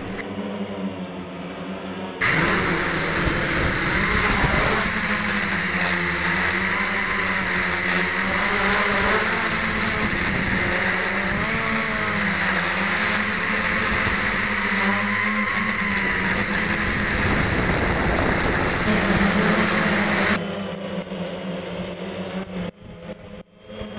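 Octocopter's electric motors and propellers buzzing as it flies, the pitch rising and falling with the throttle. It is loud and close for most of the time, with quieter stretches at the start and near the end, each beginning and ending abruptly.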